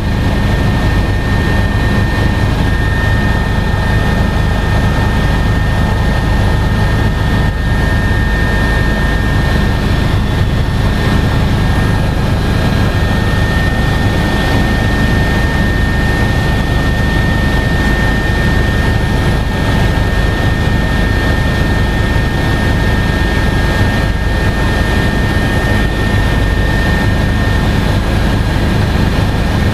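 Cabin noise of an Agusta A109S Grand helicopter in cruise flight: its twin turbine engines and rotor running steadily, a high whine over a heavy low rumble.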